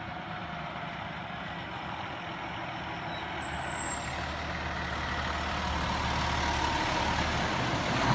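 A 2008 fire engine's diesel engine running as the truck approaches at low speed and passes close by, growing steadily louder. A brief high hiss comes about three and a half seconds in.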